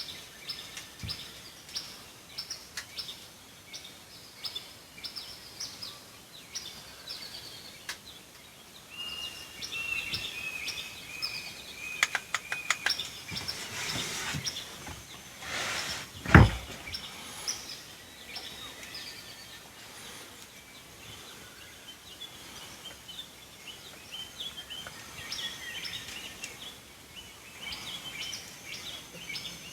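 Several birds chirping and calling in short high notes, with a single loud thump about sixteen seconds in.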